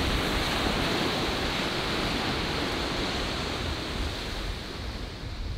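Ocean surf washing up a sandy beach: a steady rush of breaking waves, easing slightly near the end.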